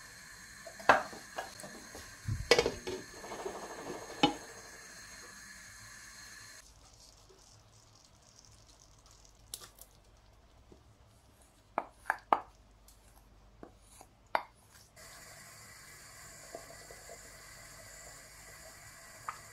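Kitchen pan sounds: a wooden spatula knocking and scraping against a non-stick frying pan of thick curry gravy. Sharp clinks and knocks come several times in the middle as chicken pieces are tipped in from a glass bowl.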